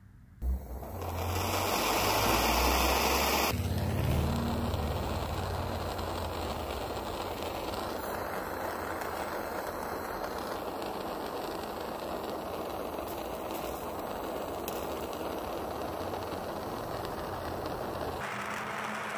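Handheld gas torch hissing steadily as its flame heats a copper tube for soldering, after a sharp click about half a second in. The hiss is loudest for the first few seconds, then settles, and changes abruptly about a second before the end.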